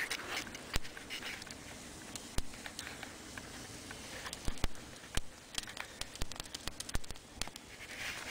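Wood fire crackling, with scattered sharp pops at irregular intervals over a faint hiss.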